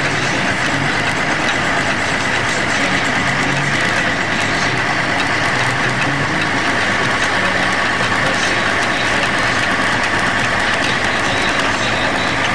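Steady engine and running noise of a moving vehicle, with an even low hum under it.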